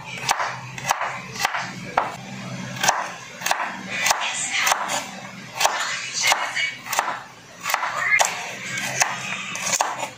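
Chef's knife chopping carrots on a wooden cutting board: a steady run of sharp knocks, a little under two a second.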